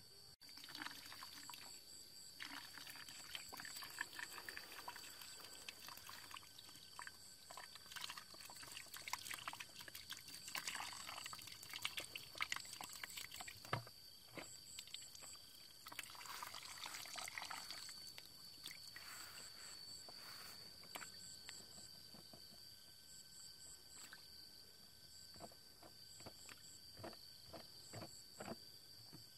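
Muddy water pouring and trickling from a plastic bottle into a plastic bucket, faint and in several uneven spells. Under it runs a steady high whine with short repeated chirps.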